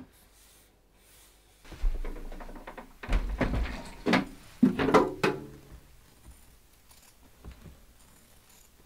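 A handful of sharp knocks and thuds, clustered about three to five seconds in, some ringing briefly, then only faint handling sounds.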